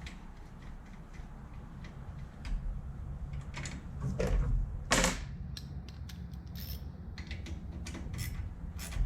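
Ratchet clicking in short runs and tool clinks on metal as the two bolts holding a small-engine carburetor are tightened, with one louder knock about five seconds in.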